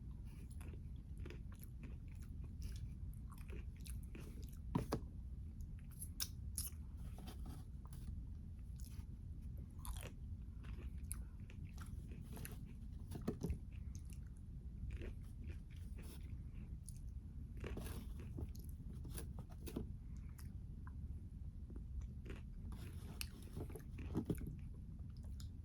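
A person chewing and biting food close to the microphone: irregular crunches and mouth clicks, a few louder bites among them, over a steady low hum.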